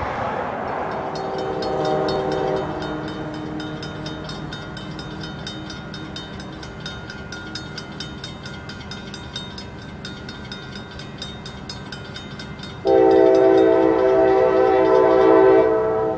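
Railroad grade-crossing bell ringing in a steady rhythm. The CSX GP39-2 locomotive's multi-chime horn sounds faintly about two seconds in, then blows a loud chord for about three seconds near the end.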